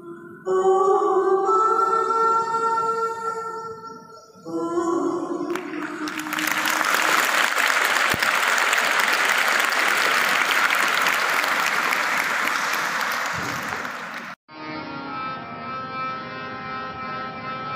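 Singing with music comes to an end, and a large audience of schoolgirls claps for about nine seconds. The applause cuts off suddenly and new music with steady held notes begins.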